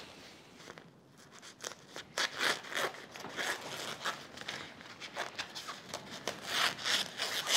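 Scissors snipping through old gazebo canopy fabric, a run of short, irregular cuts mixed with the rustle of the fabric. The cuts start about a second in.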